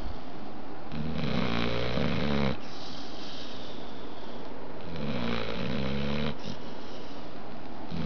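Pit bull snoring in deep sleep: two long, low snores about four seconds apart, with a breathy hiss of breath between them.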